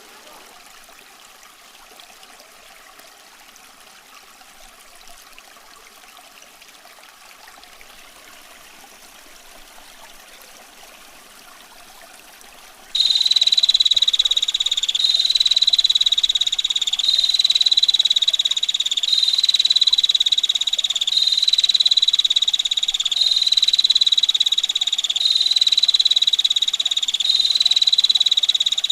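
A stream trickles softly for about thirteen seconds. Then a female prinia (prenjak betina) cuts in with a harsh, rapid rattling trill, the 'ngetir' roll, given in long phrases of about two seconds each, one after another, over the water.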